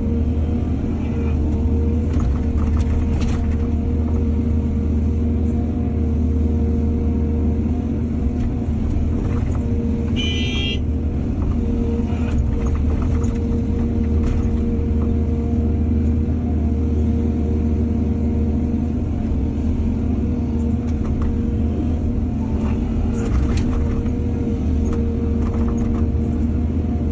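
Excavator's diesel engine running steadily at working speed, with scattered short knocks. A brief high squeak comes about ten seconds in.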